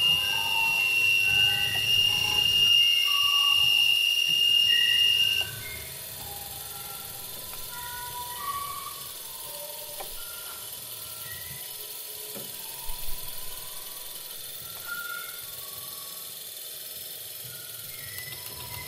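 Live experimental electronic improvisation on homemade devices, relays, motors and a prepared guitar. A steady high whistling tone cuts off suddenly about five seconds in. Under it, short scattered pitched blips carry on throughout, with a low rumble dropping away a few seconds in and a couple of clicks in the second half.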